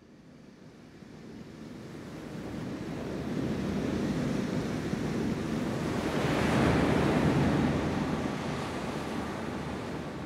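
A single ocean wave sound: a rush of surf that builds slowly, peaks a little past the middle, and ebbs away.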